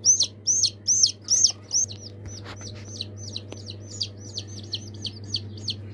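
Newly hatched chick peeping rapidly and insistently, about three high peeps a second, loud for the first two seconds and then softer but without pause; the chick's leg is caught in the incubator tray's grid. A steady low hum runs underneath.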